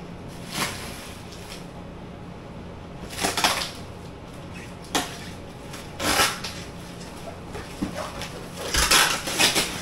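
Cardboard parcel boxes being handled and opened: a handful of short rustling, scraping bursts from the flaps and packaging, the loudest cluster near the end, over a steady low hum.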